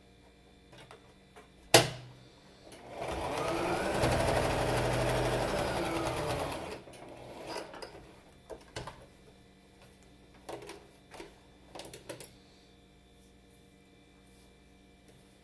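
Electric sewing machine stitching a seam for about four seconds, its motor whine rising then falling as it speeds up and slows down, after a single sharp click. Afterwards, light scattered clicks and taps as the fabric and thread are handled.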